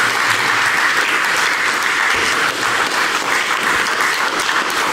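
A group of people applauding, with steady, dense hand-clapping throughout.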